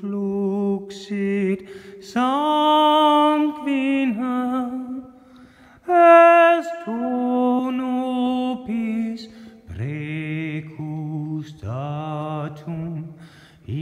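A man singing slow, long-held notes with a light vibrato in a reverberant church, the room ringing on after each note. There is a short pause about five seconds in.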